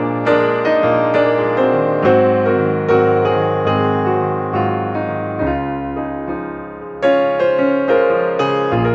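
Background music: a slow keyboard piece, piano-like notes struck about once or twice a second over held low notes, easing off briefly in the middle before picking up again.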